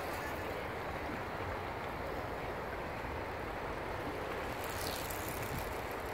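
Steady, even outdoor rushing noise with no distinct events standing out.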